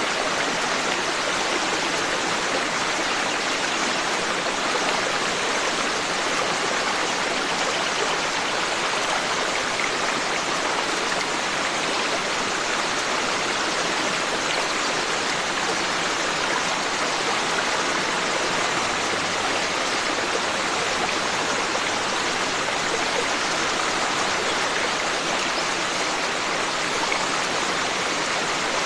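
Forest stream flowing steadily, a continuous even rush of running water.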